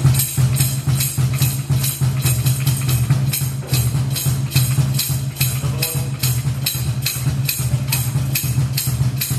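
Cajon and foot tambourine played with the feet alone: a backwards-mounted kick pedal beats the box while the tambourine jingles in a steady rhythm of about three strokes a second, over a steady low rumble.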